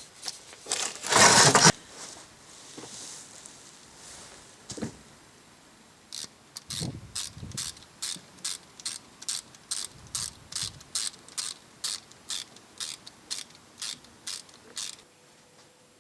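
A loud, short scraping burst, then a steady run of sharp mechanical clicks, a little over two a second, which stops near the end.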